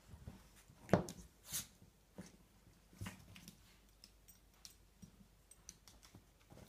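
Two dogs, a Labrador puppy and a small white dog, playing tug of war with a rope toy on a hard floor: a sharp knock about a second in, the loudest sound, a brief rustling hiss just after, another knock about three seconds in, and scattered light clicks as they shift and pull.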